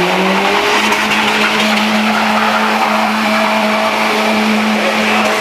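Car engine revving up over about the first second and then held at steady high revs, with its driven wheels spinning on snow through a donut.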